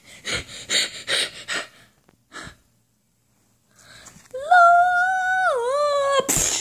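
A child's voice: breathy gasping bursts, about three a second, for the first two seconds, then after a pause one long high-pitched squeal that dips in pitch near its end, cut off by a short noisy burst.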